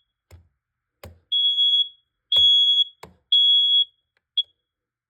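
Smoke alarm, set off by aerosol smoke test spray, sounding its three-beep pattern: loud, high, half-second beeps about a second apart, each with a click before it. A short final blip follows, then it cuts off as the alarm is hushed.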